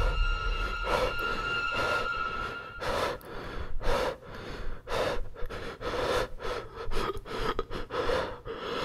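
Held tones of background music end about three seconds in, leaving a person breathing hard: short, quick panting breaths about two a second.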